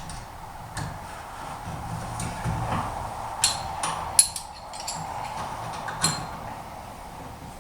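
A handful of sharp metallic clicks and taps from hand tools on a garage door's torsion spring fittings and shaft, the sharpest a little after four seconds in, during tension adjustment.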